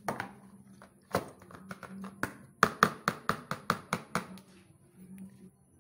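Plastic clicks and knocks as raw chicken breast pieces are tipped out of a plastic container into a black plastic tray. In the middle comes a quick run of about eight sharp knocks, roughly five a second.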